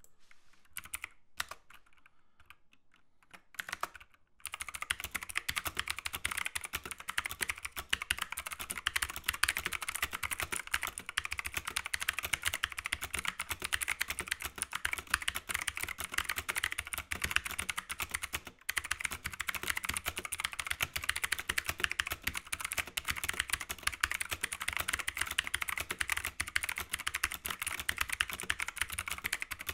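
Fast, continuous typing on a $10 budget mechanical keyboard with Cherry MX-style switches and thin keycaps: a dense clatter of keystrokes. A few separate key clicks come first, then steady rapid typing from about four seconds in, with one brief pause a little past halfway.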